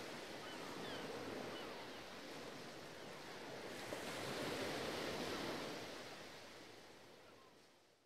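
A steady rushing wash of outdoor ambience, with a few faint short chirps. It swells about four to five seconds in, then fades out to nothing at the end.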